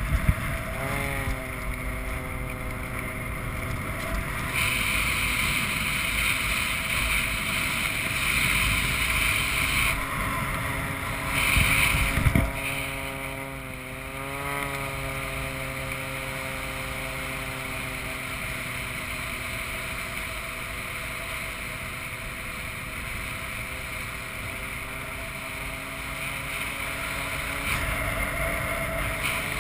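Propeller engine of a Pitts aerobatic biplane circling close by: a steady drone that bends in pitch as the plane passes, about a second in and again about halfway through. Wind rushes across the microphone in stretches, with a brief thump a little before the middle.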